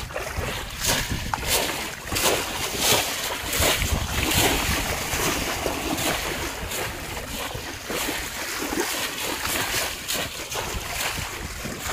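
Repeated, irregular splashing as bamboo polo fish traps are plunged down into shallow river water and men wade quickly through it. Wind rumbles low on the microphone underneath.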